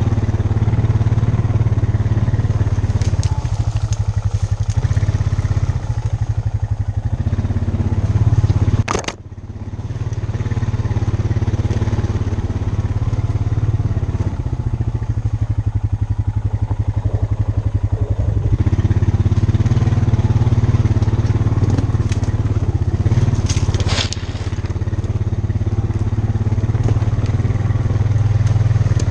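ATV (four-wheeler) engine running steadily as it rides over a woodland trail. There is a sharp knock about nine seconds in, after which the engine note briefly drops away and builds back up, and a lighter knock later on.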